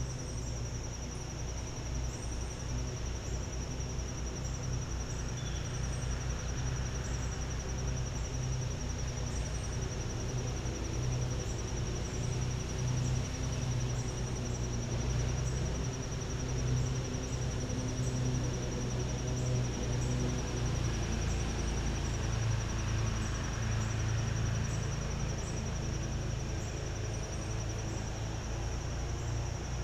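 Insects trilling steadily, one high-pitched, rapidly pulsing note that never stops, over a constant low rumble.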